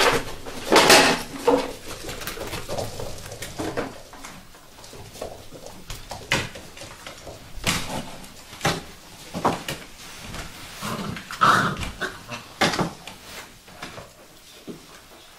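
A litter of Vizsla puppies whining and yelping in short, irregular bursts, with scattered knocks.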